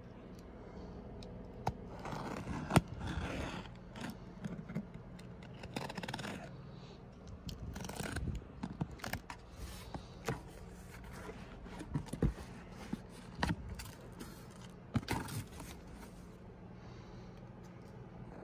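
A box cutter slitting packing tape along the seams of a cardboard box: irregular scraping and tearing of tape and cardboard with scattered sharp clicks and knocks.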